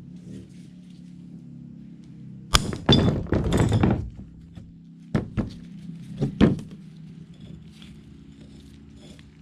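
Hammer blows knocking a wheel stud out of an old wheel hub: one hit, a quick run of blows, then a few more single hits a couple of seconds later, over a steady low hum.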